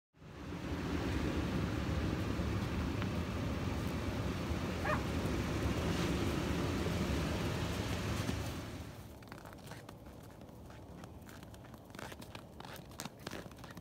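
A steady outdoor rumble like wind on a phone microphone. About 9 s in it gives way to quieter scattered crunching steps in snow.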